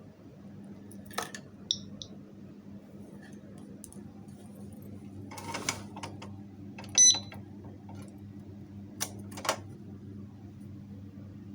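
Alarmed motorcycle disc lock being handled: scattered metallic clicks and knocks, two faint short high chirps about two seconds in, and one short, loud electronic beep about seven seconds in.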